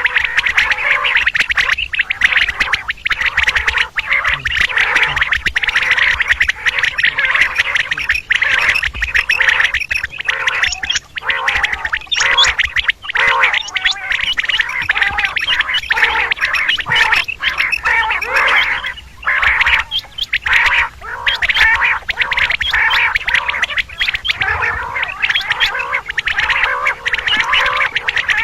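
Common quails calling in a dense, unbroken stream of short, rapid chattering notes, a recording of the kind played as a lure for quail hunting.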